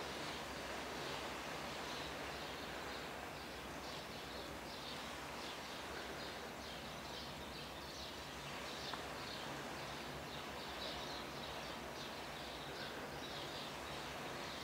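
Small birds chirping: a continual, irregular chatter of short high calls over a steady background hiss.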